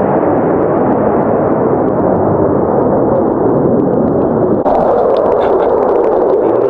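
Low-flying military fighter jet passing, the steady rushing rumble of its jet engine. About four and a half seconds in the sound cuts abruptly to another jet's pass, brighter and with scattered crackles.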